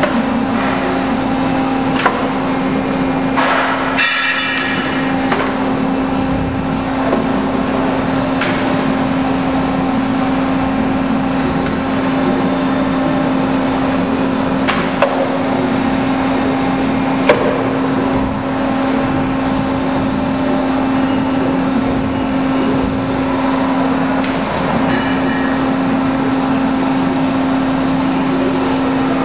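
Pines AD 35 CNC hydraulic tube bender running, its hydraulic power unit giving a steady hum while the machine cycles. Sharp clanks from the bend head, clamp and pressure die sound about every few seconds, with a brief hiss about three to four seconds in.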